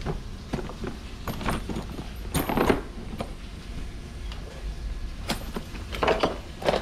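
Metal hardware parts being handled and set down: a series of clinks, knocks and rattles, with a jangling cluster about two and a half seconds in and more knocks near the end.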